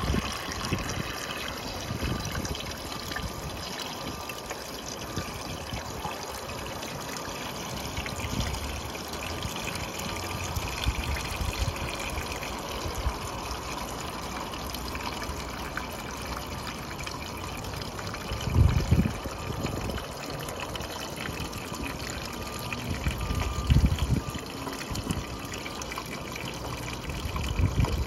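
Water running along a roof gutter and draining into the downspout outlet, a steady trickling flow. Two brief low rumbles stand out in the later part.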